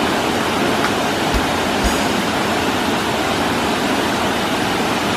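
Steady rush of a waterfall, with two brief low thumps about one and a half and two seconds in.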